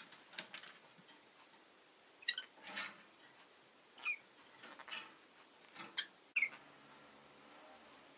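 Rosy-faced lovebirds giving short, sharp chirps and squeaks every second or so, some falling in pitch, the loudest a few seconds in and near the end.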